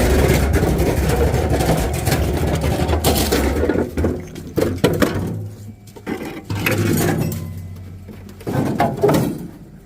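Van engine running with a steady low rumble, then switched off about four seconds in, followed by scattered knocks and clinks of metal.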